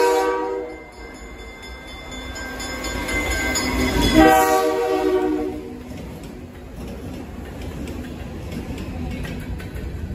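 Alco diesel freight locomotives blowing their air horn: a blast ending just under a second in, then a second, louder blast from about three and a half to five and a half seconds. Afterwards the engines rumble past and empty covered hopper cars roll by, their wheels clicking over the rail joints.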